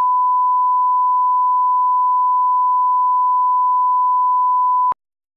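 Broadcast 1 kHz line-up tone, the steady pure test tone that runs with colour bars, cutting off abruptly near the end.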